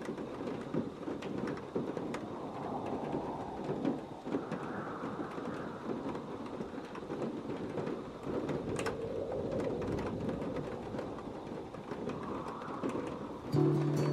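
A steady, rumbling noise with scattered clicks and crackles. Music comes in near the end with a held low chord.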